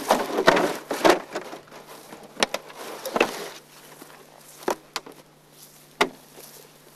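Hollow plastic goose decoys being handled and set down, with footsteps in dry stubble. It is a string of sharp knocks and rustles, crowded in the first second, then spaced out every second or so.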